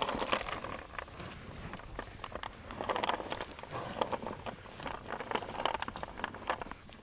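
Cattle trotting uphill, their hooves making a run of irregular thuds and knocks on the ground.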